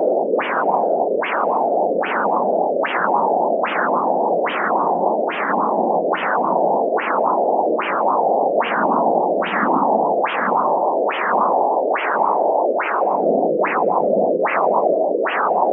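CAT+ Doppler blood-flow probe sounding an arterial pulse: a regular pulsing flow sound with each heartbeat, about 75 beats a minute. Each beat starts with a sharp rise in pitch and then falls away.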